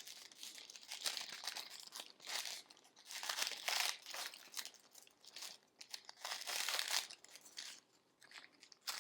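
Crinkly chip packaging being handled and torn open, in irregular rustling bursts.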